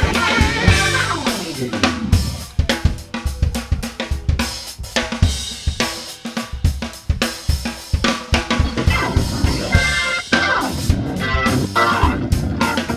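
Live funk band's drum kit playing a busy, drum-led passage of rapid snare, kick and cymbal hits over a low bass line. Keyboard and guitar chords come back in about ten seconds in.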